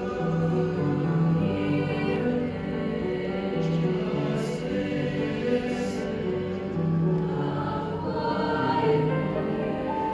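A choir singing in sustained, slowly changing harmonies.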